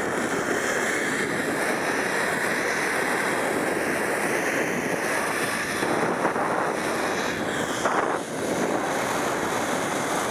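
Zip line trolley's pulleys running along the steel cable, a steady whirring hiss, mixed with wind rushing over the microphone.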